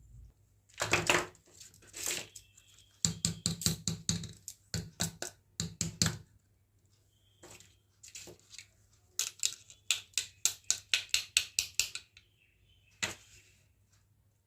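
Small plastic toy kitchen pieces being handled and set down. Sharp clicks and taps come singly and in quick runs of several a second.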